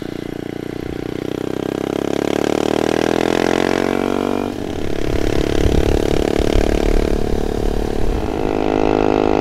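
Honda Monkey 125's single-cylinder engine accelerating under way, rising in pitch. About four and a half seconds in, the pitch drops suddenly as it shifts up a gear, then rises again.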